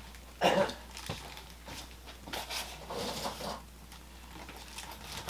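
Small plastic and metal parts of a spring-loaded model-train accessory being handled on a counter: a louder rustle or clatter about half a second in, a sharp click just after, then lighter taps.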